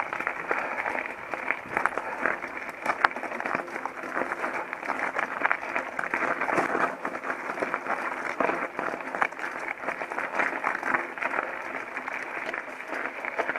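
Mountain bike rolling over a rough, stony trail: a steady dense crackle of tyres on gravel mixed with the frame and components rattling, full of small clicks.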